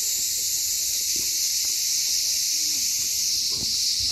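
Steady, high-pitched chorus of cicadas in the trees, with a few faint footsteps on stone paving beneath it.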